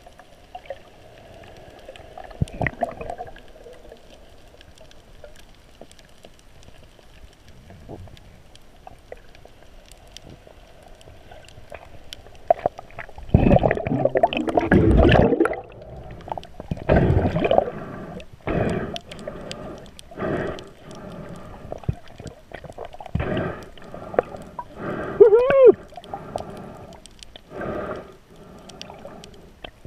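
Muffled underwater sound through an action camera's waterproof housing: a low steady wash, then from about halfway through repeated bursts of bubbling and gurgling as the swimmer moves. A short squeak that rises and falls comes a few seconds before the end.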